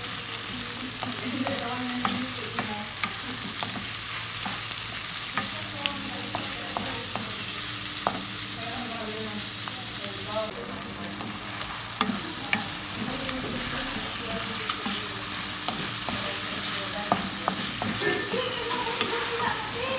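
Chicken pieces and sliced onion sizzling in hot oil in a wok while a wooden spatula stirs them, with frequent sharp clicks of the spatula scraping and tapping the pan.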